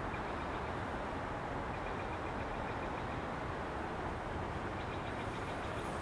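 Steady rush of flowing river water. A faint, rapid, high ticking trill comes through twice, a couple of seconds in and again near the end.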